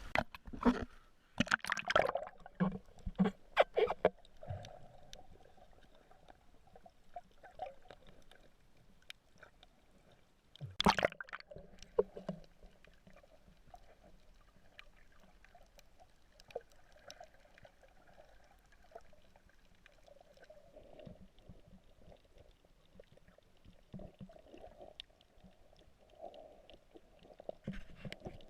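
Paddles dipping and splashing in the water as a small boat is paddled along. There are several sharp knocks in the first few seconds and a loud thump about eleven seconds in.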